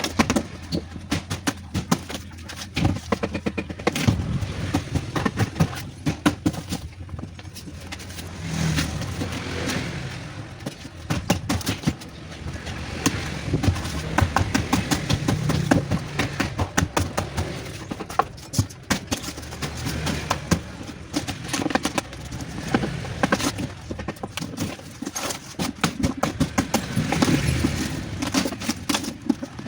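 Irregular metal knocks, clanks and clatter from a scrap two-door refrigerator being taken apart by hand with tools, over a low background rumble.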